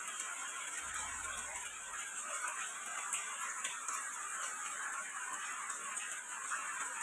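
Steady rain falling, an even patter with many small drop ticks scattered through it.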